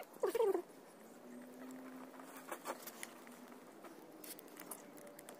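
Soft, scattered wet taps and squelches of hands shaping clay on a spinning potter's wheel. A brief wavering animal call comes right at the start.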